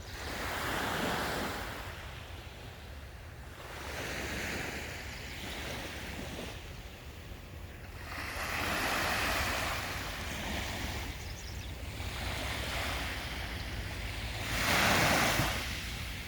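Sea waves breaking on the shore, swelling and falling away every few seconds, the loudest break near the end, over a steady low rumble.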